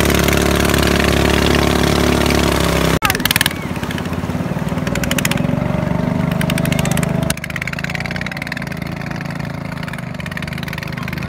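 Boat engine running loudly and steadily, with water rushing past the hull. About three seconds in it breaks off abruptly, and the engine goes on more quietly, dropping again a few seconds later.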